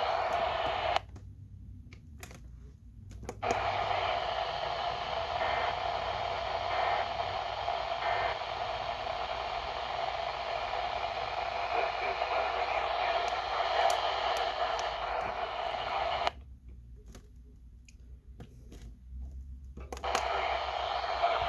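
Radio receiver static, a steady hiss that cuts out abruptly twice: from about a second in to about three and a half seconds, and again for about three and a half seconds near the end.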